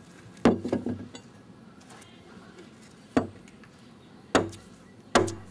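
Blade of a long-handled hand tool chopping into the wood of a dugout canoe hull as it is hollowed out: four sharp strikes at uneven spacing, the first followed by a few smaller knocks.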